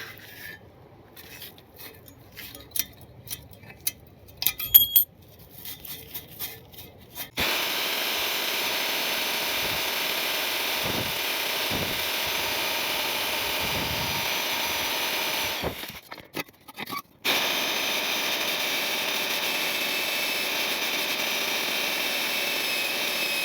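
A few seconds of metal tools clinking as they are handled. Then a power grinder grinds rust off the exhaust down to bare metal: it runs steadily for about eight seconds, stops briefly, and starts again.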